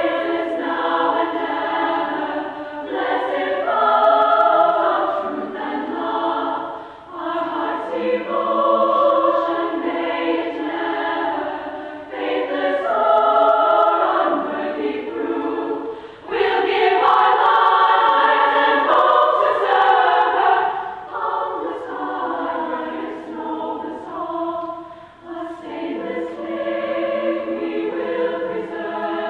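A choir singing in harmony, in sustained phrases of a few seconds each with short breaths between them; a fuller, louder phrase comes a little past halfway.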